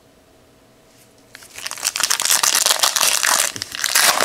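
Foil wrapper of a trading card pack being torn open and crinkled, starting about a second and a half in after a quiet moment.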